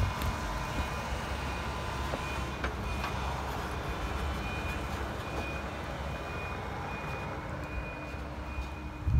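Tracked excavator's diesel engine running with a low rumble, while a high-pitched alarm beeps at an even pace, steadier in the second half.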